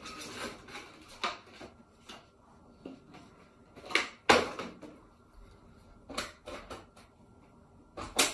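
Scattered knocks and clicks of gaming-chair parts being handled and fitted: about half a dozen sharp taps, the loudest about four seconds in and another near the end.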